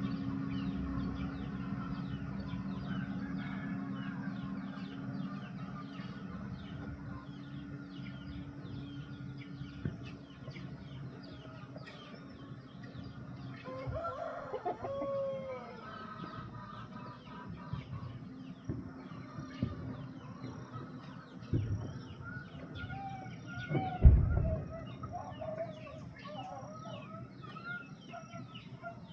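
Chickens clucking and calling over a steady low machine hum that fades out about halfway through. A single heavy thump about 24 seconds in is the loudest sound.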